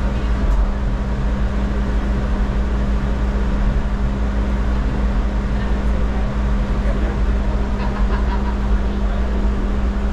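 Funicular car of the Falls Incline Railway running along its track, a steady low rumble with a constant hum heard from inside the car.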